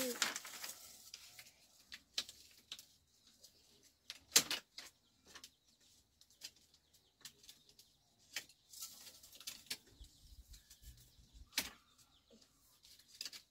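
Scattered light knocks and taps at irregular intervals, with one sharp knock about four seconds in.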